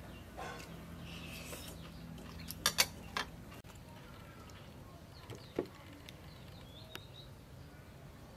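A metal spoon clinking against a ceramic bowl: three sharp clinks close together about two and a half seconds in, then a few softer taps later. Faint bird chirps in the background.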